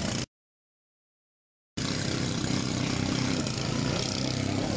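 Several pump boat engines running steadily as the racing boats set off through the shallows. The sound cuts out completely for about a second and a half just after the start, then returns.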